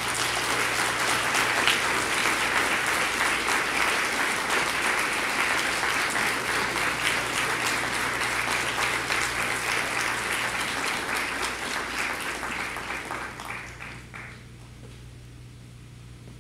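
Audience applauding, dying away about fourteen seconds in.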